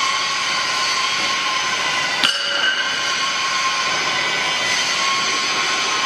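Steady machinery noise with several whining tones, and one sharp metallic clink a little over two seconds in.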